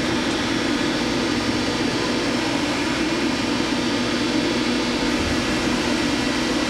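Steady mechanical hum of a powered-up Doosan Puma 400LB CNC turning center standing at rest, its spindle not yet turning.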